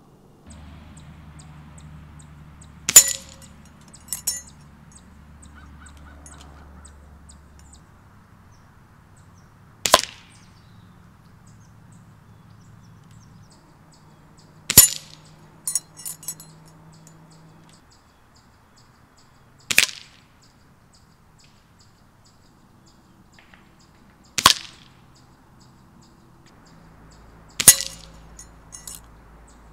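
Beeman R-7 spring-piston air rifle shots and pellets striking a steel spinner target: six sharp cracks spaced about five seconds apart. Several are followed about a second later by lighter clinks as the target swings.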